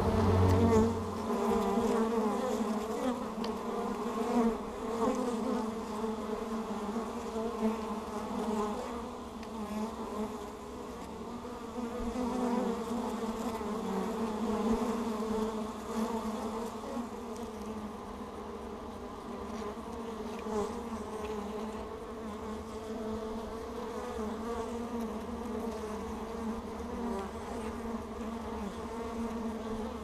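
Honeybees buzzing at the entrance of their hive, close to the microphone: a steady, layered drone that swells and fades as bees fly past. A louder, deeper hum stops about a second in.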